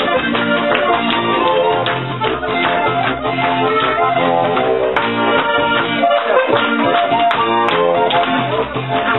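Live Alpine folk band music (volkstümliche Musik): a guitar and a sustained melody instrument playing over a steady beat.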